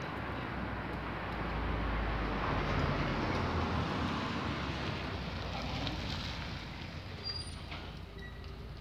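A car passing along the street: a rush of engine and tyre noise that swells over the first few seconds and fades away after about six seconds.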